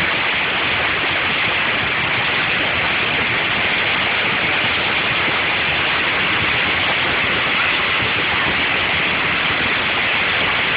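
Heavy rain falling on a car, heard from inside the cabin as a dense, steady hiss.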